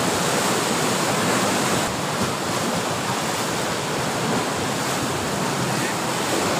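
Steady rushing noise of sea surf.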